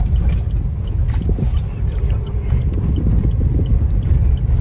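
Car cabin noise while driving slowly over a rough, unpaved forest track: a steady low rumble of engine and tyres, with faint scattered rattles and ticks.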